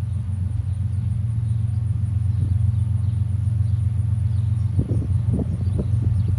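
Low, steady rumble of approaching BNSF diesel locomotives, growing slightly louder as they draw closer, with a few short stronger surges near the end.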